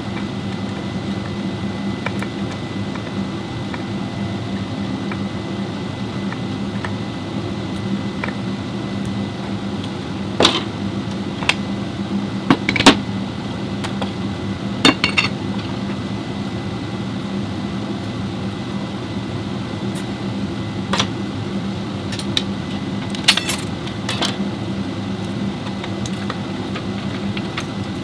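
Metal tools and parts clinking and clanking now and then over a steady low mechanical hum.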